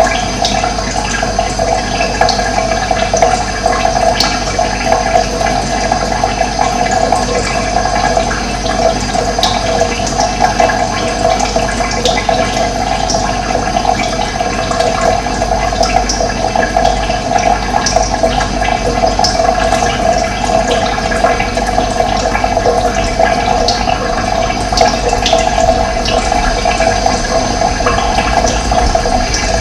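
Running water flowing steadily, a continuous rushing.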